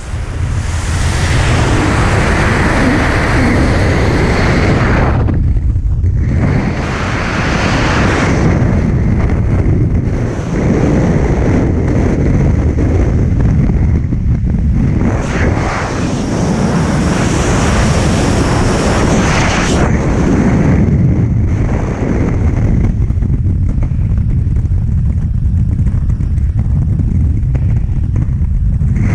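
Freefall wind rushing over the camera's microphone during a tandem skydive: a loud, steady roar that drops away briefly a few times.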